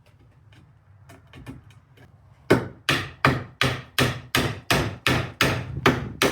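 Wood being worked with a hand tool: a few faint taps, then, about two and a half seconds in, loud, even strokes begin at about three a second.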